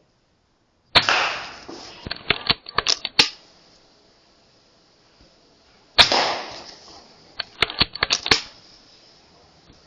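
Two shots from a .177 Air Arms S510 Ultimate Sporter PCP air rifle, about five seconds apart. Each is a sharp crack with a tail that fades over about a second, followed by a quick run of metallic clicks.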